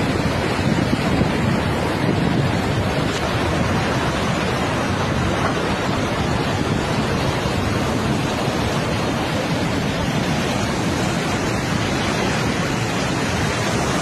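Storm wind and rough sea surf together, a steady rushing noise, with wind buffeting the microphone.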